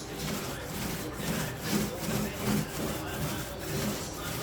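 Paint roller on an extension pole rolling primer onto a drywall repair, a rhythmic rubbing swish in repeated back-and-forth strokes, about one and a half a second.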